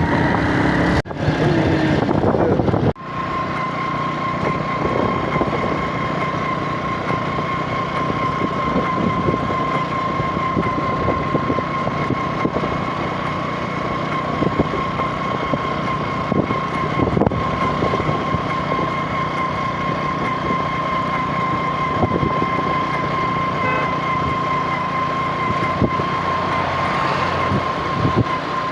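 Steady vehicle running noise with a constant high whine held throughout, after an abrupt cut about three seconds in.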